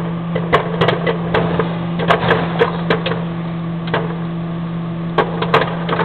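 Microwave oven running with a steady hum while popcorn kernels in a microwave bag pop inside it, about a dozen sharp, irregular pops.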